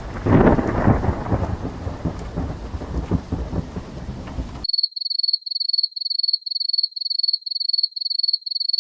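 Thunder rumbling over rain, with a loud crack just after the start, cutting off abruptly a little past halfway. Then a rapid run of short, high electronic beeps at one pitch, about two or three a second.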